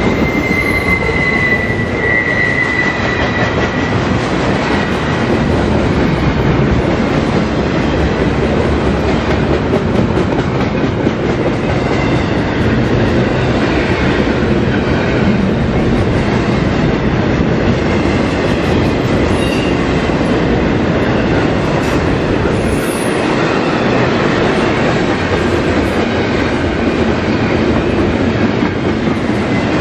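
Double-stack intermodal freight train cars rolling past: a steady, loud rumble of steel wheels on the rails, with a high wheel squeal over the first few seconds.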